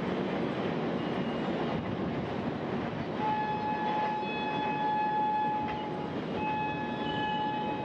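Train horn sounding two long, steady blasts, the first starting about three seconds in and the second shortly after six seconds. Under it is the steady rumble of a passenger train rolling away along the tracks.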